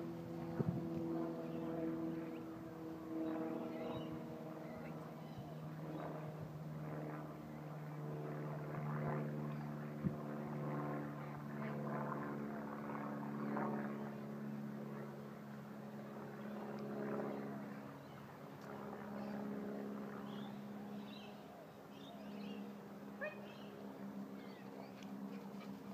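A distant engine droning steadily, its pitch shifting slowly. Birds chirp near the end.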